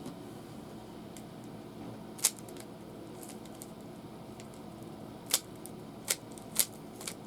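Plastic Rubik's Cube being twisted by hand, its layers snapping into place with sharp clicks: one a little over two seconds in, then three more in quick succession from about five seconds on, with a few fainter ticks between.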